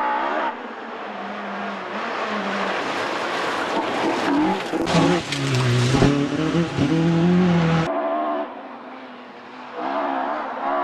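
Rally car engines at high revs on a gravel stage. One car builds up and passes close, loud, with tyre and gravel noise and the engine note rising and falling through gear changes. The sound cuts off suddenly, and near the end another car's engine is heard coming closer.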